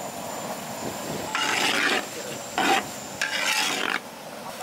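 A long metal utensil scraping through chopped onions frying in butter in a large aluminium pot: three rasping stirring strokes, the first about a second and a half in and the last the longest.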